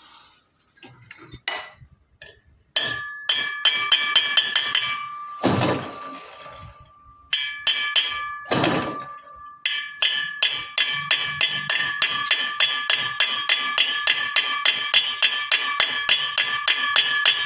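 Hammer blows on metal in the course of a mag wheel repair, each blow ringing. A few irregular blows come first, with two longer rushing noises between them. From about ten seconds in the blows come steadily at about three a second.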